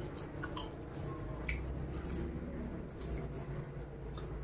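Faint wet squishing and small clicks of bare fingers picking through sambal and fried salted fish, over a low steady hum.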